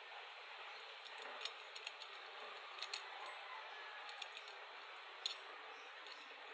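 Scattered light clicks and clinks of small metal parts being handled and fitted, over a steady hiss.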